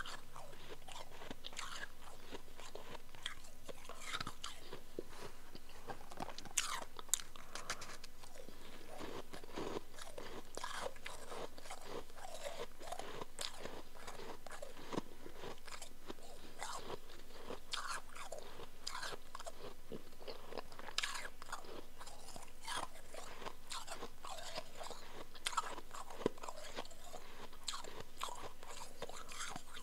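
A person chewing powdery chunk ice: continuous irregular crunching, with a few louder, sharper cracks scattered through.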